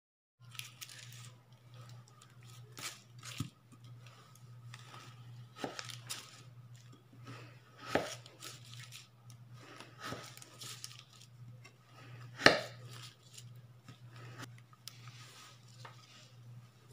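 Kitchen knife cutting and scraping through a set slab of ginger brown sugar candy on paper, with irregular knocks and crunches as chunks break off and are set down; the loudest knock comes about twelve seconds in. A steady low hum runs underneath.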